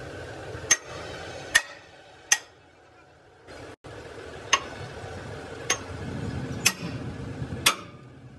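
Metal striking metal: seven sharp knocks at irregular intervals, roughly a second apart, each ringing briefly, over a steady background noise.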